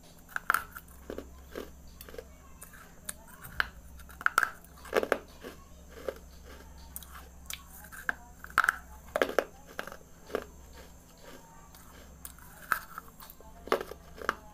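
Crunchy biting and chewing of baked red clay pieces: sharp, irregular crunches, several a second in clusters.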